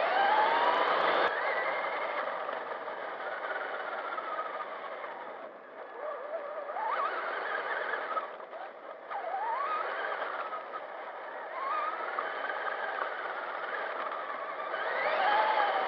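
RC truck's electric motor and gears whining, the pitch rising and falling several times with the throttle, over a steady hiss of tyres on sand and wind, heard from a camera mounted on the truck itself.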